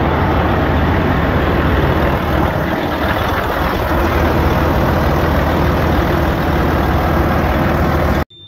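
Detroit Diesel Series 60 12.7-litre inline-six diesel of a Freightliner Columbia running steadily on its first start after a rebuild. It cuts off suddenly near the end.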